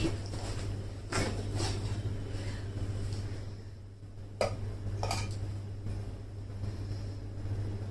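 Kitchenware clinking and knocking as it is handled, four sharp clinks spread over the stretch, over a steady low hum.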